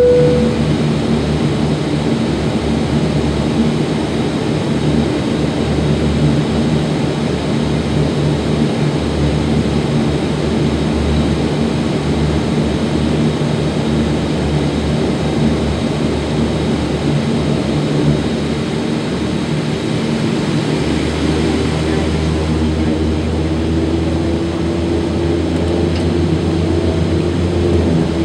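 Saab 2000's Rolls-Royce AE 2100 turboprop engines running with a steady hum, heard from inside the passenger cabin. About 21 s in a deeper hum steps up, and a rising tone follows as the engines build power for the take-off roll.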